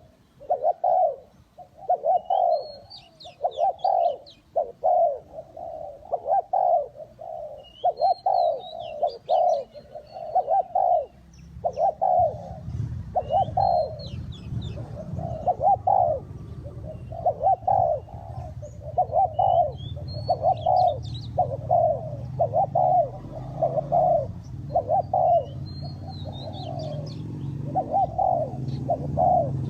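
Spotted doves cooing in a steady run of low, repeated coos. A different bird gives a short high chirping phrase about every five or six seconds, and a steady low rumble comes in about twelve seconds in.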